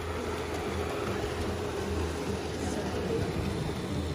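Electric model train running around its track with a steady low rumble and a faint steady whine.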